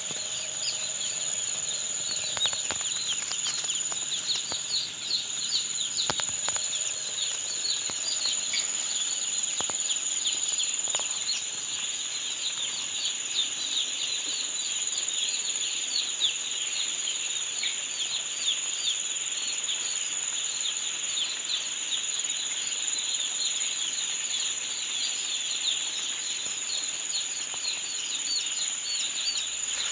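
A large flock of day-old chicks peeping nonstop, a dense chorus of short high chirps, with a steady thin high whine underneath and a few scattered clicks.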